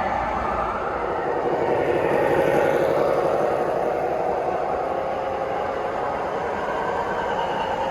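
O-gauge three-rail model train running along the track: a steady whir of the motor with fast, fine wheel clatter, growing a little louder about two to three seconds in as it passes closest.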